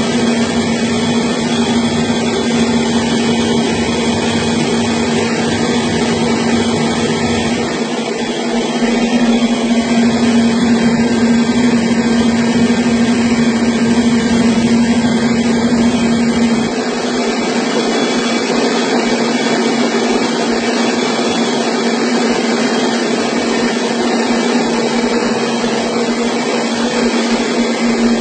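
Small rice milling machine running steadily, a continuous mechanical whirr with a steady hum.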